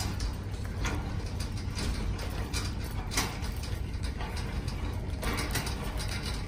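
Metal wire shopping cart rolling across a hard store floor: a steady rumble and rattle from the wheels and basket, with scattered clicks and knocks.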